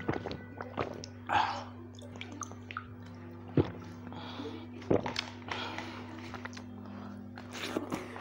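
Sounds of a meal eaten by hand: a plastic drink bottle handled and set down with a knock about three and a half seconds in, and fingers mixing rice on a banana leaf, over a steady low hum.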